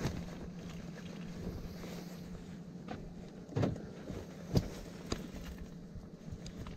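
Rustling and a few soft knocks from someone handling things at the open door of a minivan, with two louder thumps a little past the middle, over a steady low hum.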